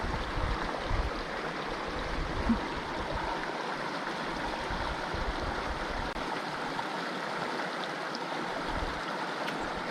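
Stream water running: a steady rushing, with some low rumbling during the first three seconds.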